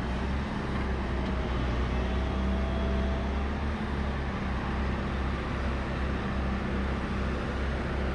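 Volvo A30C articulated hauler's diesel engine running, heard from the cab as a steady low drone, with a faint thin whine from about one to three seconds in.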